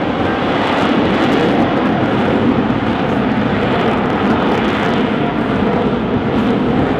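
A Lockheed Martin F-35B's Pratt & Whitney F135 engine is running in hover configuration, with the shaft-driven lift fan engaged and the rear nozzle swivelled down. It makes a loud, steady jet noise that holds even throughout.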